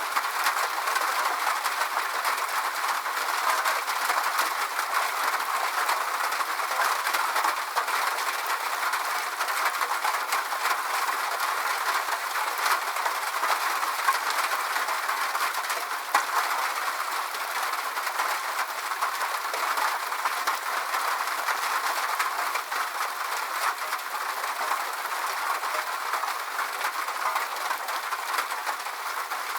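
Steady night rain: a dense, even hiss of many small drops falling, with no low rumble.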